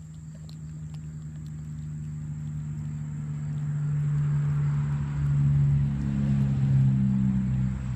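A motor vehicle passing close by, its engine hum and tyre noise swelling steadily, loudest near the end. Faint wet chewing clicks from a cat eating run underneath.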